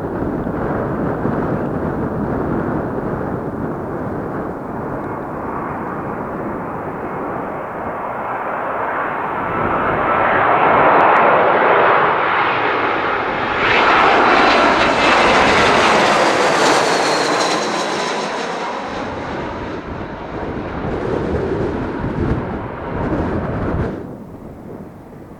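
Airliner engines passing close on a takeoff or landing: the sound builds to its loudest roughly halfway through, with a high whine that slides down in pitch as the aircraft goes by, then eases off and cuts off sharply near the end.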